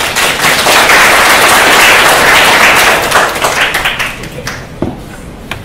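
Audience applauding, loud for about three seconds and then dying away, with a few last scattered claps near the end.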